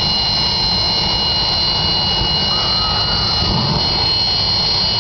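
Jet car's Westinghouse J46 turbojet (from a Navy F7U Cutlass) running steadily: a loud, low roar with a steady high-pitched whine over it.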